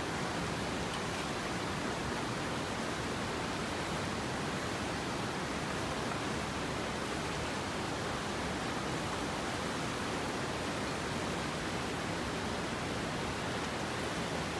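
Steady rush of river water, an even hiss with no breaks.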